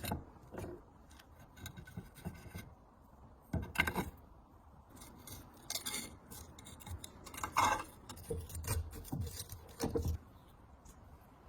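Irregular clinks, knocks and scraping of metal parts and tools being handled, with a few louder knocks about four and seven and a half seconds in.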